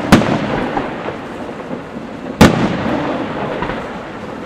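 Large aerial firework shells going off: two loud bangs a little over two seconds apart, each followed by a long rumbling echo.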